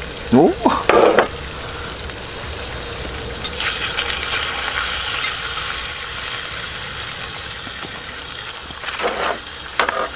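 Meat and sauce sizzling on an iron griddle heated over a campfire; the sizzle swells louder about three and a half seconds in.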